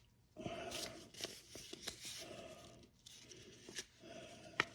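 Small tools and packaging being handled in a machinist's toolbox drawer: soft, irregular rustling with a few light clicks, and a sharper click near the end.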